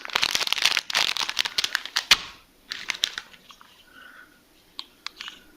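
Plastic and foil MRE component packets crinkling as they are handled, dense for about the first two seconds, then a few scattered rustles and clicks.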